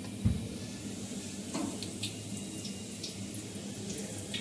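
Battered onion rings deep-frying in hot oil in a steel wok, with a steady bubbling sizzle. A low thump comes about a third of a second in.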